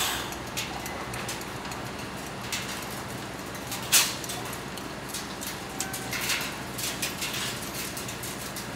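Heavy machinery running steadily during crane counterweight removal, with scattered metallic clicks and knocks and one short, sharp noise about four seconds in.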